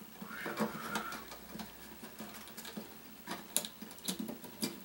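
Wires and a small circuit board with its connectors being handled and pressed into place in a slow cooker's base: a rustle of handling, then a few sharp clicks in the second half.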